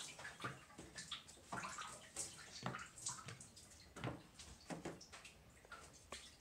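Faint handling noise: small scattered taps, clicks and rustles of paper and cardboard items being moved and slotted into a wire-mesh shelf organizer.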